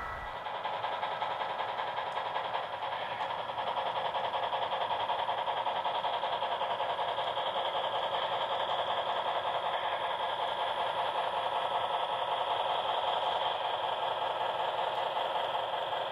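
HO scale model freight train of refrigerator cars rolling past on the track, its metal wheels making a steady, fast clatter on the rails that grows louder about four seconds in.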